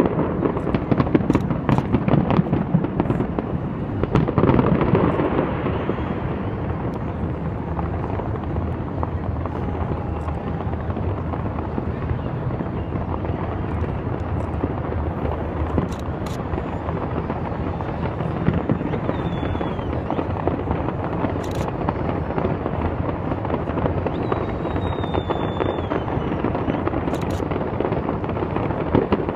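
Large fireworks display going off: a dense barrage of bangs and crackling, heaviest over the first several seconds, then a steady crackle with a few sharp cracks standing out.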